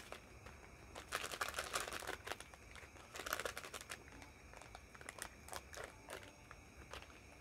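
Plastic drinking-chocolate sachet crinkling as it is handled, faintly, in two main spells of rustling about a second in and about three seconds in, with scattered small crackles between.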